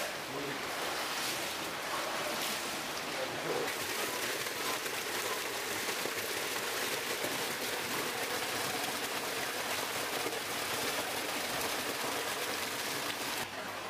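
Steady rush of running water in the koi house's concrete ponds, with faint voices in the first few seconds.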